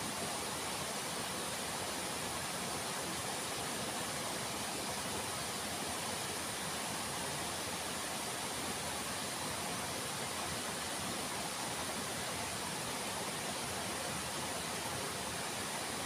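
Steady, unbroken rush of flowing water: an even hiss that does not change.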